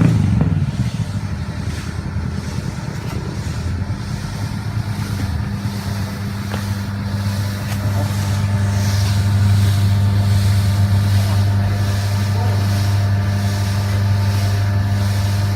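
Feed and fertilizer mixer running steadily with a constant hum as it blends fish meal, ground cassava and rice bran. It gets a little louder about 8 seconds in.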